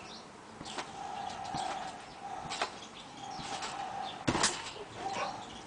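Trampoline being jumped on: short creaks and thumps from the springs and mat about once a second, with a louder thump about four seconds in as a jumper lands flat on the mat. A faint steady hum runs underneath.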